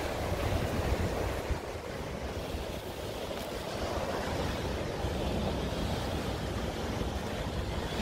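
Sea waves washing onto a rocky shore, a steady surf noise, with wind buffeting the microphone as a low rumble.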